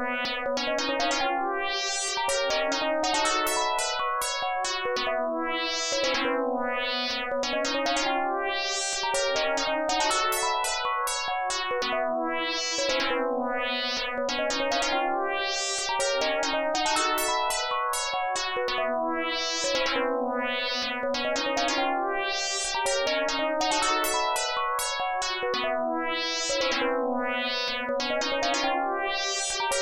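Mobile phone ringtone: an electronic melody of struck notes over a moving bass line, the same short phrase looping every few seconds.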